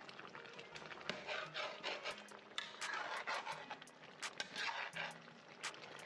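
Metal spoon stirring a thick chicken stew in an aluminium pot, scraping through the food with irregular clicks and knocks against the pot's side and bottom.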